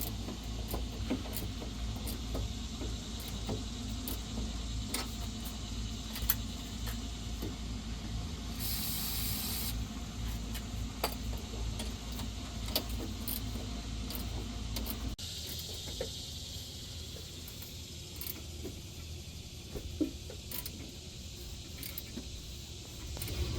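A short hiss of aerosol spray, WD-40 penetrating oil on rusted brake bleeder screws, about nine seconds in, among scattered light clicks of tools on metal. A steady low hum underneath stops abruptly about two-thirds of the way through.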